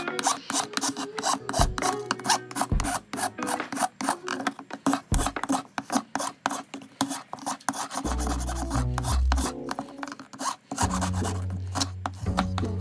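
A hand file rasping in quick repeated strokes along the cut edges of an old speaker frame, smoothing them down.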